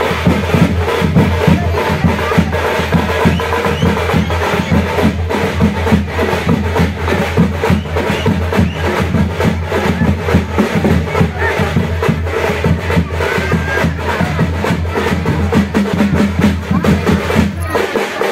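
Music carried by loud, fast drumming with a steady, driving beat.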